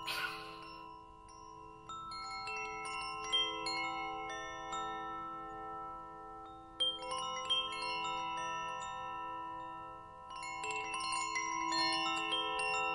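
Shimmering wind-chime music: many metal chime notes ring and hang over each other. New clusters of strikes come in every second or two.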